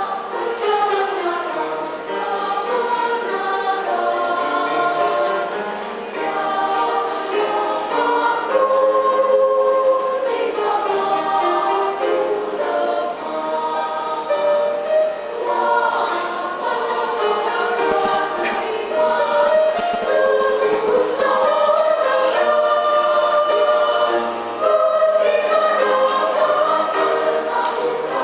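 Children's choir singing a sacred choral piece in several parts, holding sustained notes in harmony.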